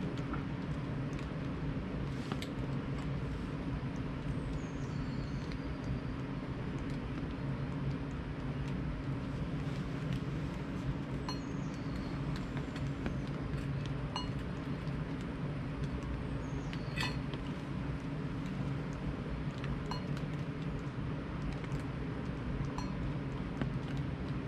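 Metal camping cookware clinking now and then, a utensil tapping against a small pot, over a steady low hum.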